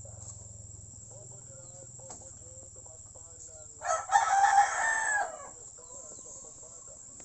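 A rooster crowing once, about four seconds in, a single call lasting under two seconds.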